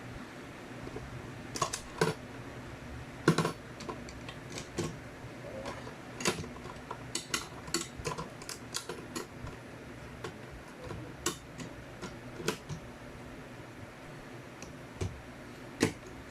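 Irregular light clicks and taps, scattered unevenly throughout, from hands handling an aluminium motorcycle top box.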